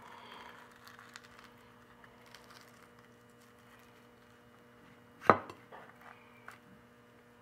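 Avocado slicer tool scraping faintly through soft avocado flesh along the skin, with a few small clicks and one sharp knock about five seconds in.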